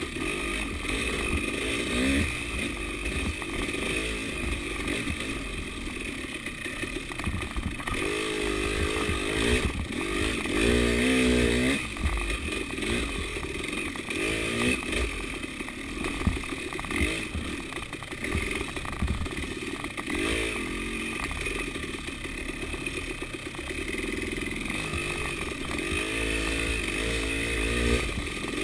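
KTM 300 two-stroke enduro motorcycle engine being ridden hard on rough trail, its pitch rising and falling over and over as the throttle is blipped and rolled off. Rattling of the bike and steady wind hiss on the on-bike camera run underneath.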